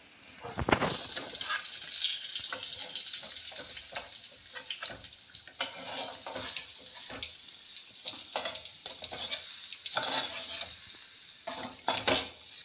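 Fried jackfruit pieces sizzling in hot oil in a metal kadai as a spatula scrapes and lifts them out, with scattered clicks of the spatula against the pan and a sharper knock about a second in.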